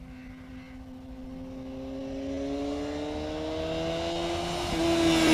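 A motorcycle approaching along the road, its engine note growing steadily louder and slowly rising in pitch as it nears.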